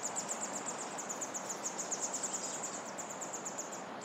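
A continuous high-pitched trill of rapid chirps, about a dozen a second, over a steady background hiss. The trill breaks off briefly near the end.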